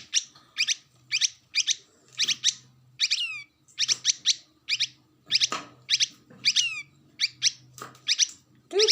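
Oriental white-eye and yellow-vented bulbul calling: a steady run of short, sharp, high chirps about two a second, with a couple of falling whistled notes around a third and two thirds of the way through.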